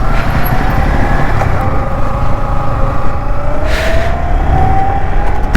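Yamaha MT-15's single-cylinder engine running as the motorcycle rides on, its pitch rising gradually over the last few seconds, over a steady low rumble. A brief hiss about four seconds in.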